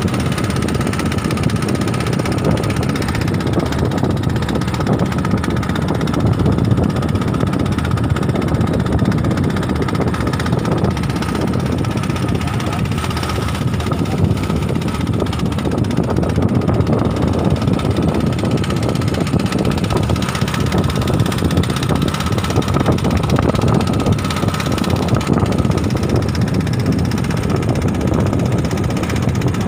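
A small boat's engine running steadily: a low drone with a thin, steady whine above it.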